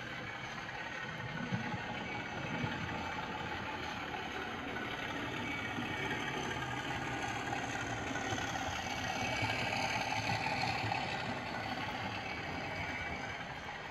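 Model diesel locomotive hauling coaches along the layout's track: a steady motor hum and wheel rumble that grows louder as the train draws near, loudest about two-thirds of the way through, then easing off, with two sharp clicks in the first three seconds. It is a test run on freshly cleaned and ballasted track, running smoothly.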